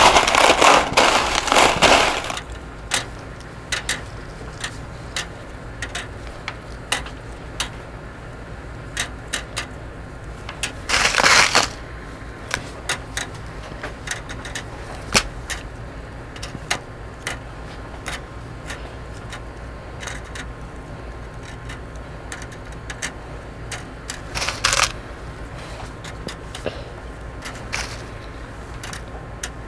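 A handful of steel paper clips rattling in a plastic tub, then sparse light clicks as clips are picked up and set one at a time into an aluminium-foil boat floating in water, the count building toward the point where it sinks. The clips rattle loudly in the tub twice more along the way.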